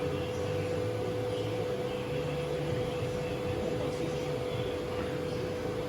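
Steady machine hum with a constant mid-pitched whine.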